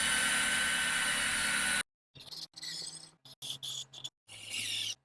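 A small power tool's motor running steadily with a high whine, cutting off abruptly about two seconds in. Then come short, broken bursts of scraping with a few high squeaks.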